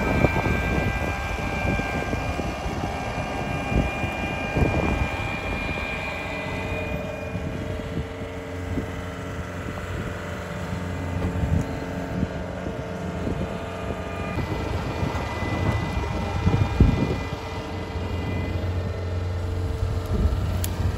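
John Deere 333E compact track loader working under load, its diesel engine running steadily with a high whine over it. Several knocks and clanks come through as it shoves a 40-foot steel shipping container across wet ground.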